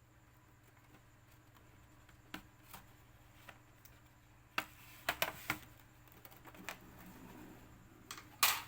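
Sharp plastic clicks and snaps as the bottom cover of an HP 14 laptop is pried off and its clips pop loose. There are a few light clicks, a quick cluster of clicks about five seconds in, and the loudest snap near the end.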